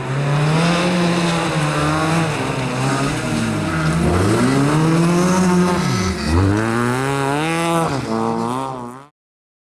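Rally car engine revving hard on a stage, its pitch climbing and dropping again and again with gear changes and lifts off the throttle, with quick rises and falls near the end. The sound cuts off suddenly about nine seconds in.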